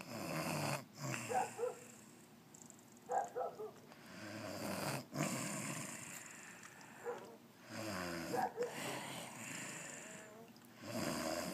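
A woman snoring in her sleep, in a slow rhythm of snores each a second or so long and about four seconds apart.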